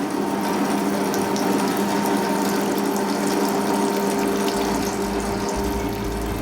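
Metal-cutting bandsaw running with its coolant flowing, most likely cutting the steel drive-shaft stock: a steady hum under a loud hiss of running coolant. A deeper rumble joins about four and a half seconds in.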